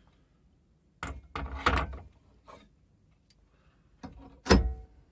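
Metal clicks and clunks from handling a keyed drill chuck and the lathe tailstock while a drill bit is changed. A cluster of knocks comes about a second in, and one loud knock with a short metallic ring comes near the end.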